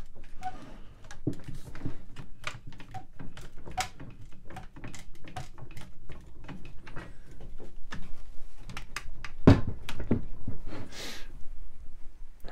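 Trigger ratchets of one-handed Quick-Grip bar clamps, reversed into spreaders, clicking as they are squeezed over and over to force a glued chair joint apart, with a louder knock about nine and a half seconds in.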